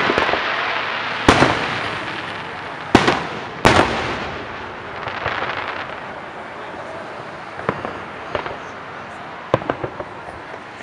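Aerial fireworks shells bursting: four loud bangs in the first four seconds, each trailing off in an echo, then a scatter of fainter pops near the end.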